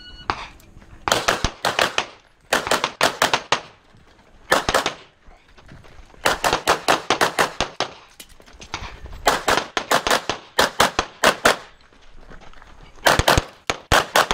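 Rapid pistol fire from competition pistols in a practical-shooting stage run: shots in quick strings of two to five, each a fraction of a second apart, with short gaps between strings.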